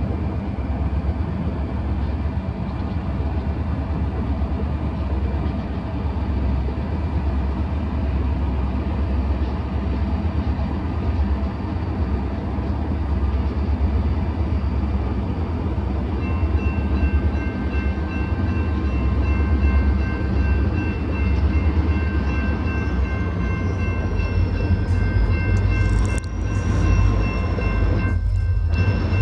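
Diesel locomotives of a loaded coal train rumbling low and steady as the train approaches. About halfway through, a ringing made of several steady high tones starts and continues: the grade-crossing warning bell.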